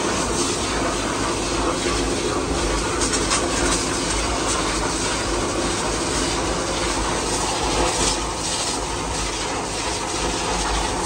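High-pressure sewer jetting nozzle spraying water into a flooded manhole, over the steady running of the vacuum truck's pump and suction hose; an even, continuous mechanical rush and hiss.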